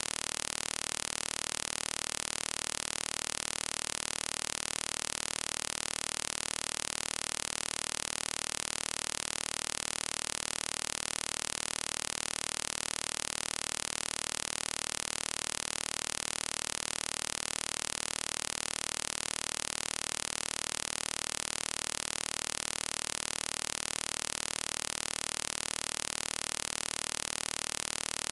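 Steady, even hiss of static or white noise, strongest in the highs and unchanging, with no other sound in it.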